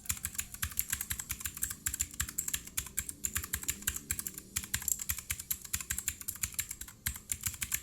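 Fast, continuous typing on a Digital Alliance Mechanical 6 RGB keyboard with blue switches: a dense run of sharp key clicks with a short pause about seven seconds in.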